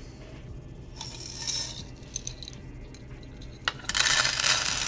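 Loose Lego pieces clattering as they are tipped out of a mug into a tray. A few soft clinks come first, then a dense rattle starts about four seconds in as the pieces pour out.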